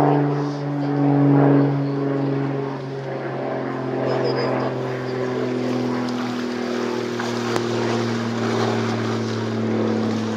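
An engine running steadily, its pitch slowly falling over the several seconds.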